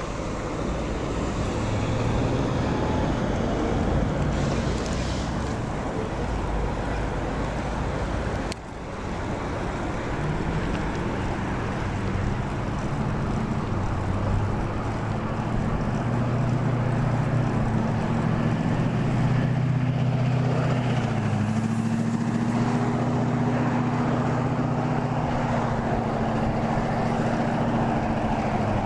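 Steady wind and road noise on a clip-on microphone while cycling in traffic, with a low hum that steps up and down in pitch. The sound drops out briefly about eight and a half seconds in.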